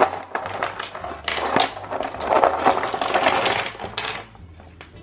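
Hard plastic Play-Doh letter and number stamp pieces clattering against each other and the table as they are shuffled by hand. It comes in two rattling bursts and dies down about four seconds in.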